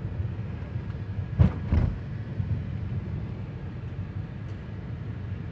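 Car driving, a steady low road and engine rumble heard from inside the cabin, with two short thumps about a second and a half in.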